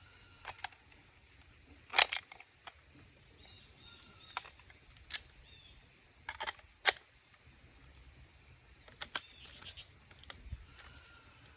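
Hard plastic parts of Star Wars Forge Saber toy lightsabers clicking and knocking as they are handled and fitted together: about a dozen sharp clicks at uneven intervals, the loudest about two seconds in and near the middle. Faint bird chirps in the background.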